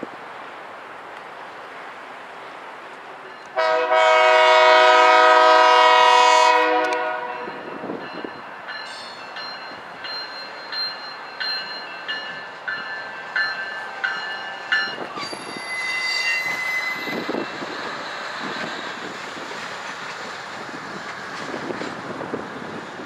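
Knoxville Locomotive Works SE15B diesel switcher sounding one long chord blast on its horn. A bell then rings about one and a half times a second as the locomotive rolls past, followed by a brief high wheel squeal.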